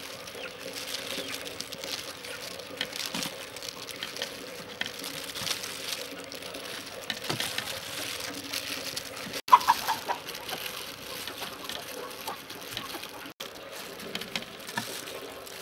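A chicken clucks a few times about ten seconds in, the loudest sound. Around it, soft rustling and light clicking of gloved hands working raw sticky rice grains in a metal tray.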